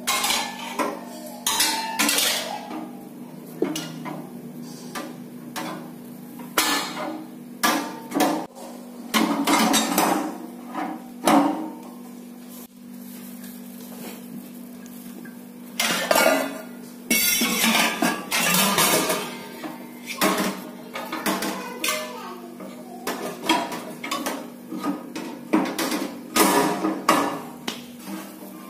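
Stainless-steel parts of a meatball-dough chopper handled during assembly: irregular clanks, clinks and scrapes as the chopping-blade assembly and bowl lid are set against the steel bowl. The knocks come in clusters with a quieter gap in the middle.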